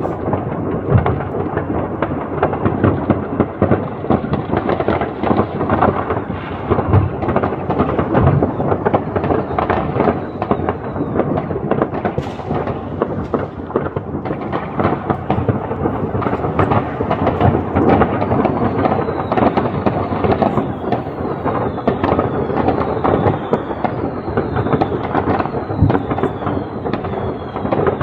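New Year's Eve fireworks going off in a dense, continuous barrage of overlapping bangs and crackling. Short falling whistles come repeatedly in the second half.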